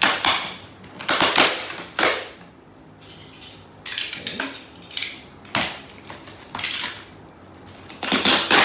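Packaging being handled and opened: plastic and paper crinkling and rustling in about seven irregular bursts.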